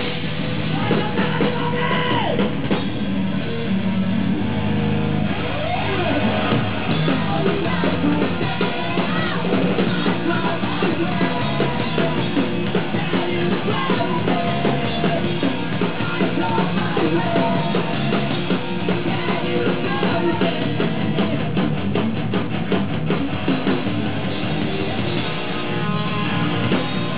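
Live punk rock band playing loud and without a break: distorted electric guitar, bass guitar and a Yamaha drum kit, with shouted singing into the microphones.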